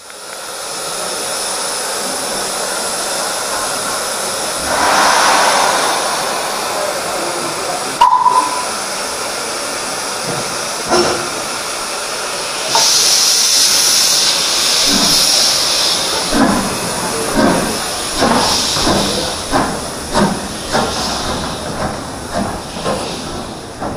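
Steam locomotive hissing steam, with loud surges of hiss and a brief whistle about eight seconds in. From about sixteen seconds in it starts away, its exhaust beats coming steadily and getting quicker.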